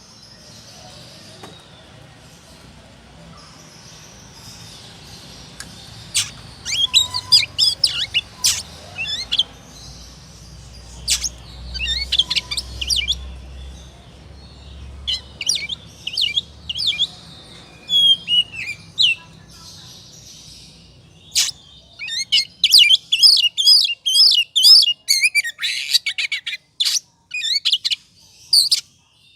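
Oriental magpie-robin (kacer) singing hard in agitated 'ngobra' fighting mode, the kind of song used to provoke other males. The song comes as bursts of rapid, varied chirps and whistles, starting about six seconds in and separated by short pauses, and is densest near the end. A faint low hum runs under the first part.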